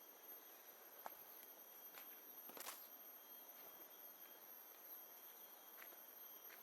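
Faint, steady high-pitched trilling of insects such as crickets in tropical jungle, over a low hiss. A few soft footsteps on a path, the clearest about two and a half seconds in.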